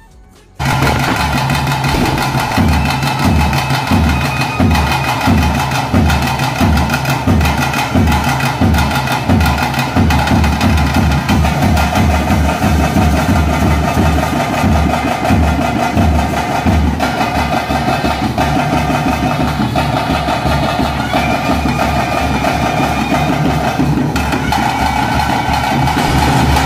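A group of chenda drums, cylindrical rope-tensioned drums beaten with curved sticks, playing loud, dense rhythmic drumming with a steady pulse, the accompaniment to a bhuta kola ritual. It starts abruptly about half a second in, and a held higher tone comes in over the drums in the second half.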